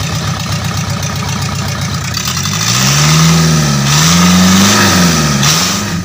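Diesel truck engine running and being revved: its note rises about two and a half seconds in, goes up and down a couple of times, then drops back toward idle near the end.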